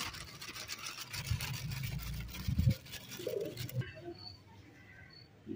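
Flour being sifted by shaking a round metal-mesh sieve over a steel bowl: a rapid, scratchy rustling hiss, with a few low thumps midway, that cuts off about four seconds in.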